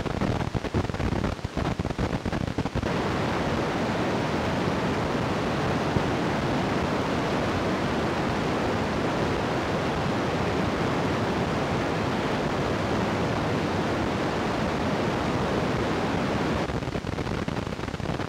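Steady rushing noise of wind buffeting the camera microphone as the teacup spins, choppy for the first three seconds, then even, and easing a little near the end.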